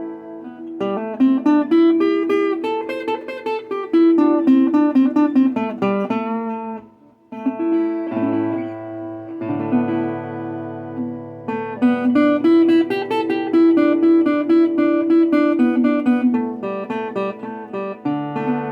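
Resonator guitar played with a pick: a run of picked notes over ringing low bass notes, with a short break about seven seconds in. The tone sounds shaky, which the player puts down to the camera's microphone not coping with the chorus of the resonator.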